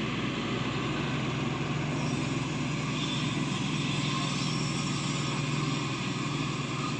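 Matador Shantui excavator's diesel engine running steadily, with a steady low hum that swells slightly through the middle and eases near the end.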